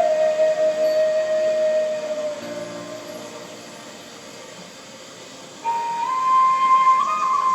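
Thai khlui bamboo flute playing a slow melody: a long held note that fades away over the first few seconds, a soft pause, then a new phrase entering higher about three-quarters of the way through.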